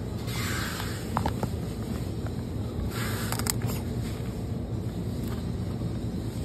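Steady low hum of a supermarket's background noise, with short rustles of plastic packaging as a film-wrapped tray of cherries is picked up and handled, about half a second in and again around three seconds in.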